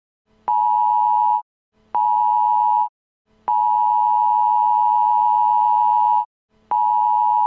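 Emergency Alert System–style two-tone attention signal sounded in pulses. Two beeps about a second long are followed by a long one of nearly three seconds, then another short beep begins. Each beep starts and stops abruptly at a steady pitch.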